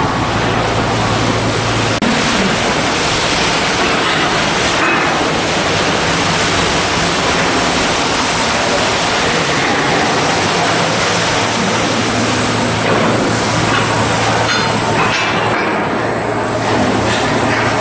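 Loud, steady rushing noise of shipyard machinery or work. A low hum underneath drops out about two seconds in and comes back near the end.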